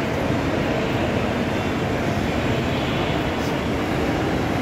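Steady low rumble and hiss of background noise on an open elevated metro platform, unchanging throughout.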